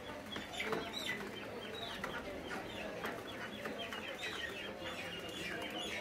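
Caged poultry clucking and chirping, many short calls overlapping without a break.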